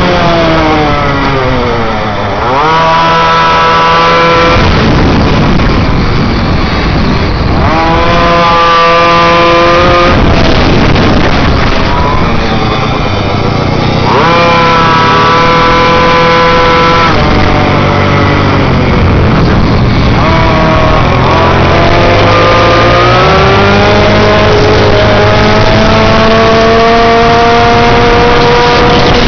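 Small midbike engines running hard around a track, heard from onboard with other bikes close by. The pitch drops, then climbs steeply again four or five times as the bikes slow and accelerate. A dense rush of noise sits beneath the engines.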